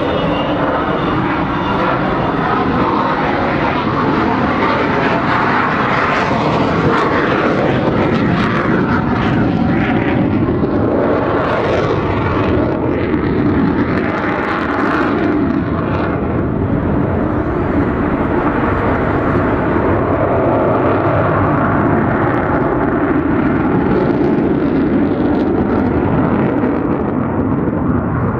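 Avro Vulcan XH558's four Bristol Siddeley Olympus turbojets at display power, a loud sustained jet roar with wavering tones in it: the intake howl the Vulcan is known for.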